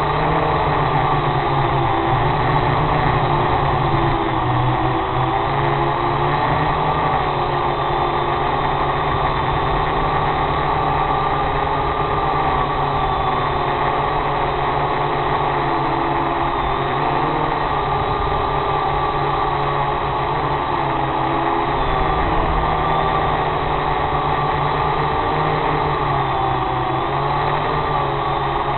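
A drone's electric motors and propellers running steadily, recorded from the aircraft itself. The pitch wavers up and down a little as the motor speed shifts.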